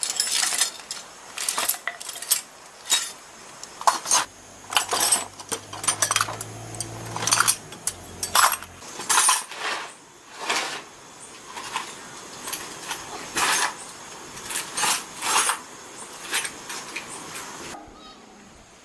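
Metal tools and engine parts clinking and knocking together in irregular, sharp strikes, about one or two a second. A low steady hum runs underneath for a few seconds starting about four seconds in.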